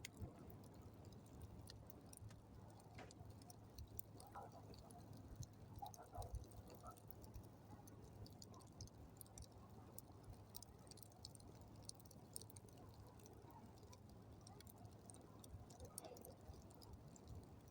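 Campfire crackling faintly, with scattered small pops and snaps.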